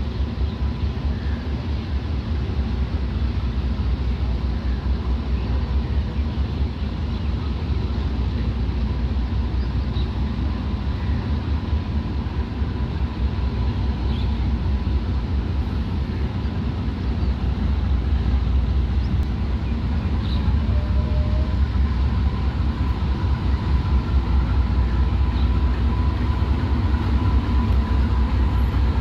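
Diesel locomotive hauling a long train of oil tank wagons as it approaches, a steady low engine rumble that grows louder over the last third.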